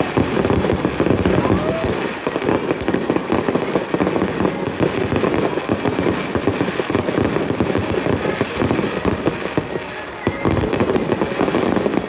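Fireworks going off in a rapid, continuous barrage, many bursts and crackles overlapping with no gap between them, thinning slightly near the end.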